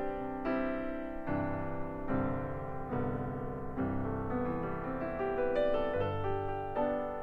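Background music: piano playing a slow melody over chords, a new note or chord struck roughly once a second.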